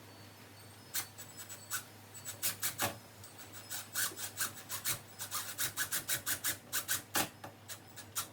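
Screwdriver turning the mounting screws of a door handle set: a run of short scratchy rasps, several a second, starting about a second in.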